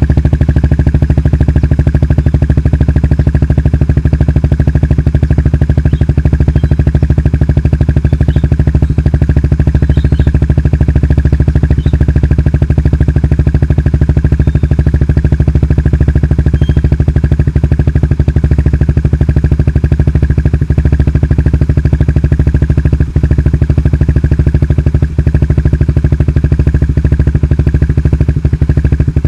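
Honda Supra GTR 150's 150 cc single-cylinder engine idling steadily through an aftermarket silencer, an even, unchanging note.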